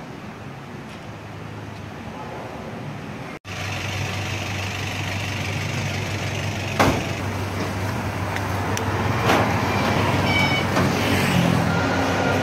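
Street traffic and a steady engine hum, with two sharp clanks a few seconds apart as signboards are thrown into a truck's metal bed, and a brief toot near the end.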